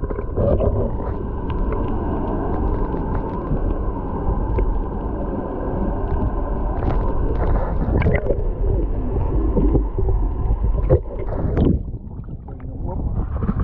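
Muffled underwater sound from a camera held below the surface: a low water rumble with a steady whine and a slowly wavering tone, typical of the boat's electric trolling motor holding position on spot-lock, with a few knocks. The sound drops and thins near the end as the camera comes up.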